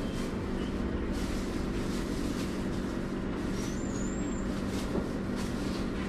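Steady machine hum with a couple of constant low tones, under a few faint clicks and rustles.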